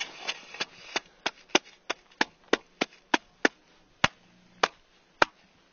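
Hand tapping on a shovel blade laid flat on an isolated snow column in an avalanche compression test: a run of sharp knocks, about three a second, then a few slower ones near the end as the column is loaded until it fractures.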